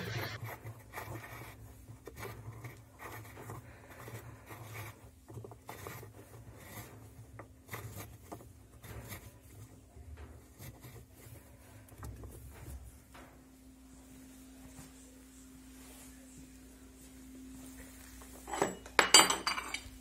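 Faint metallic clicks and rubbing as the tub-securing nut is turned by hand onto a washing machine's transmission shaft. A louder knocking clatter of metal comes near the end.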